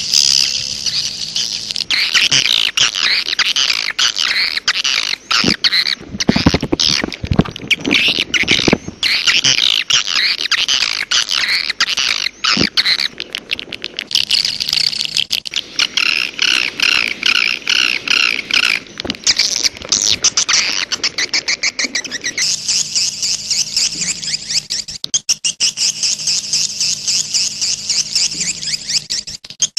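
Swiftlet calls used as a lure to call wild swiftlets: dense, high twittering chirps mixed with rapid clicks, turning into a more even high trill in the last third.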